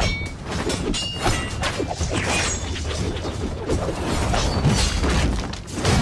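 Sound effects of a spear-and-sword fight: a rapid run of sharp metal clashes, some ringing briefly, mixed with swishing swings and heavy impacts over a steady low rumble.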